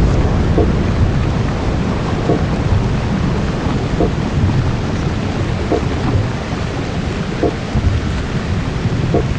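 Ambient electronic music played live: a dense rumbling noise wash like rain and thunder, with a short pitched blip repeating a little under every two seconds.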